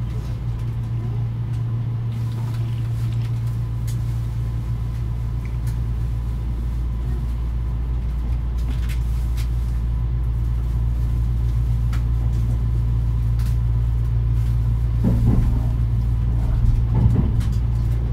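Kintetsu 80000 series Hinotori electric train heard from inside the car, a steady low running rumble that grows slowly louder as the train gathers speed, with a few faint clicks.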